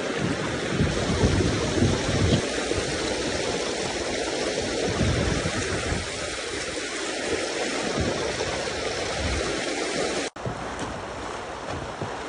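River water rushing through small class 1–2 rapids, a steady noisy hiss with uneven low buffeting of wind on the microphone. The sound drops out for an instant about ten seconds in, then carries on.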